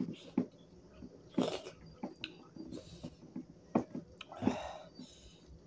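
Close-mouthed chewing of rice and goat-meat curry eaten by hand, with irregular wet lip smacks and short squelches.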